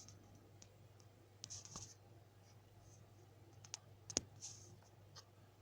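Near silence with a faint steady hum and a few scattered small clicks and rustles, the sharpest about four seconds in.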